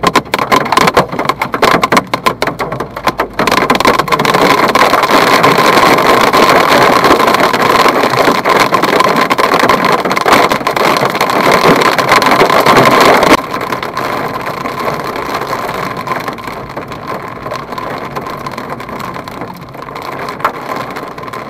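Hail clattering on an Abarth's roof and windscreen, heard from inside the cabin. Separate hits build a few seconds in to a loud, dense clatter, which drops suddenly to a lighter patter about thirteen seconds in.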